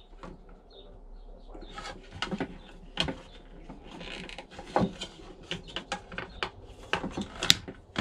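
A run of sharp clicks and small plastic knocks, the loudest about seven and a half seconds in: wire cutters snipping through the wire to a Thetford cassette-toilet flush pump while the plastic pump housing is handled.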